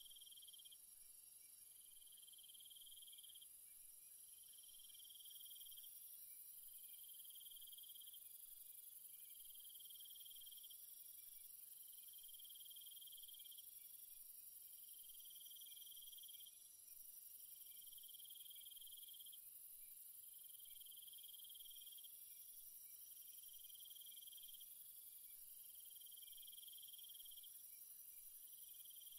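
Faint insect chorus: a high trill about two seconds long repeating every two to three seconds, over a steady high hiss.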